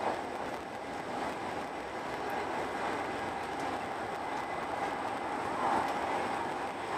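Eurostar Italia high-speed train running at speed, heard from inside the passenger carriage: a steady rush and rumble of wheels, track and air, with a brief swell a little before the end.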